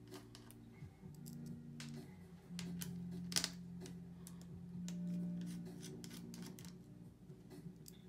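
Small scattered clicks and ticks of a precision screwdriver on the tiny battery-connector screws inside an opened MacBook Pro, the sharpest about three and a half seconds in, over soft background guitar music.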